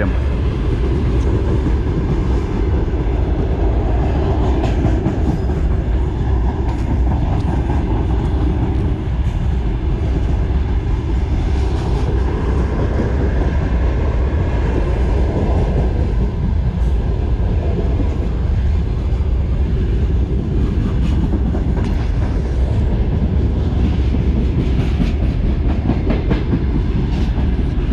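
Freight train passing on the neighbouring track: a steady, loud rumble with the clatter of its wheels over the rail joints.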